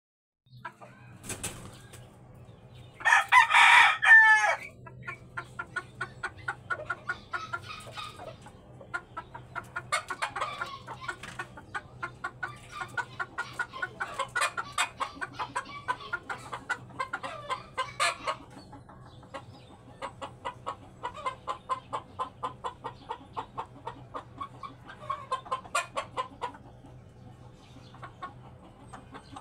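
A rooster crows once, loudly, about three seconds in, followed by long spells of rapid clucking, several clucks a second, broken by short pauses.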